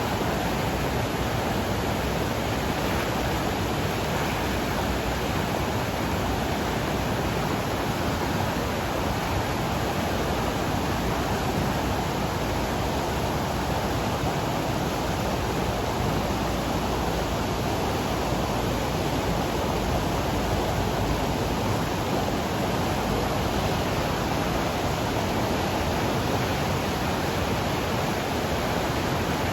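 Flooded mountain river swollen with runoff, rushing hard in a steady, even roar of water.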